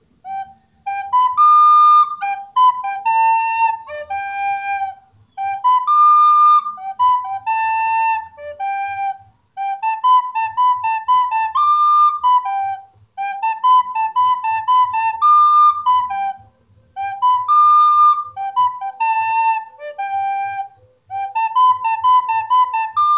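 Flute playing a short melody of only a few notes, repeated phrase after phrase with brief pauses between.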